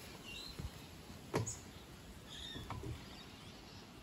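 A single sharp knock about a second and a half in, then a fainter one near the end, with a few faint bird chirps.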